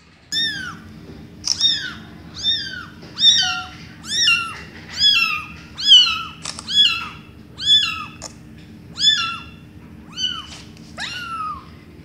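Young kitten mewing over and over, about one high-pitched mew a second, each call rising and then falling in pitch.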